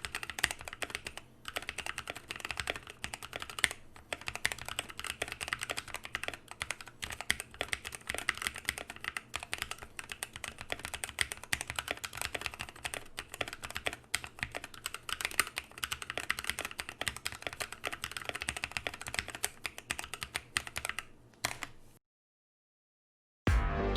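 Fast, continuous typing on a Drop Carina 60% mechanical keyboard fitted with NovelKeys Cream linear switches and POM jelly keycaps in a frosted acrylic case. The typing stops about two seconds before the end.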